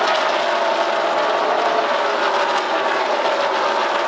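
A pack of NASCAR Xfinity Series stock cars running at speed as the field passes, their V8 engines blending into one dense, steady sound. The engine notes slide down in pitch as the cars go by.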